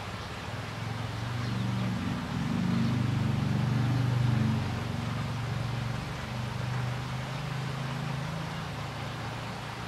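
Low motor hum over a steady hiss, swelling over the first few seconds and easing off after about five seconds.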